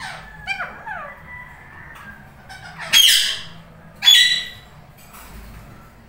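Indian ringneck parakeets calling: short gliding chirps in the first second, then two loud, harsh squawks about a second apart near the middle.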